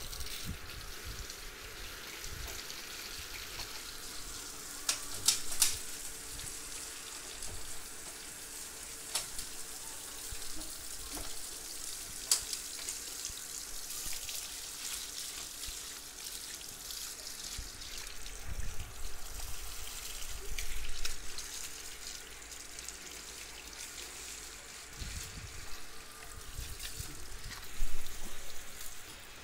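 Water from a garden hose spraying and splashing over a motorcycle, a steady hiss with a few brief louder spatters.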